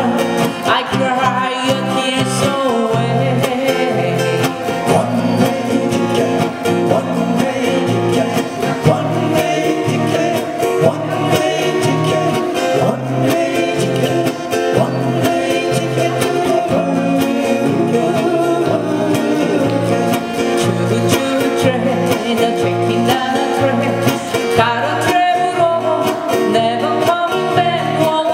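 Several acoustic guitars strumming together in a steady, upbeat rhythm, with sung vocals over them.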